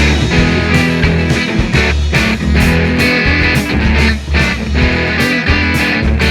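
Instrumental rock music with guitar.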